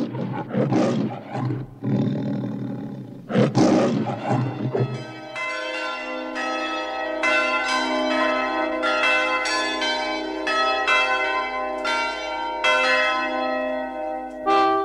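The MGM lion roaring twice, the second roar ending about five seconds in. Then a slow melody rung on bells, each note struck and left ringing.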